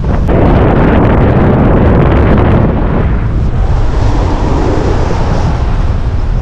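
Airflow in paragliding flight buffeting the pilot-mounted camera's microphone: a loud, steady rush with a heavy deep rumble, easing slightly about three seconds in.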